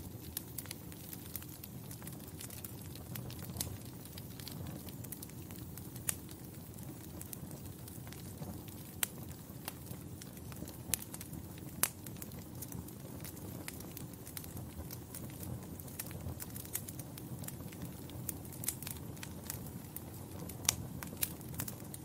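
Wood fire crackling, with a low steady rumble of flames under frequent irregular pops and snaps, a few of them markedly louder.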